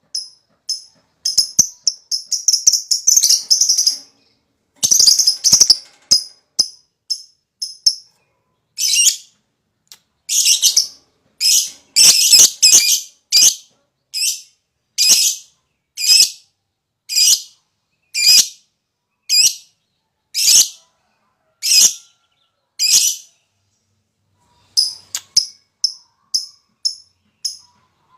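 Lovebird calling. It starts with several seconds of rapid, shrill chattering, then gives single piercing shrieks about once a second, and near the end breaks into quick chattering again.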